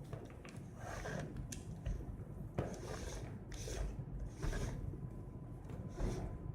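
Handling noise as an 8x magnifier lens is screwed onto a night vision goggle: a series of soft scrapes and small clicks from the parts being turned and fitted, roughly one a second.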